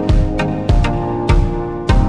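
Background music with a steady beat: a low thump about every 0.6 seconds under sustained pitched notes.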